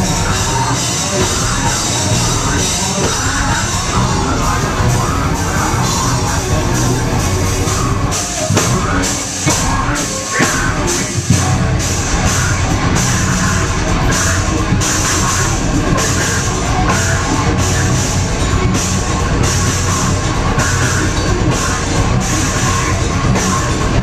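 Live metalcore band playing loud on a club PA, heard from inside the crowd: distorted guitars, bass and drums, with a vocalist on the mic. A few short stops break the music about a third of the way in, then the band plays on with steady, evenly spaced cymbal hits.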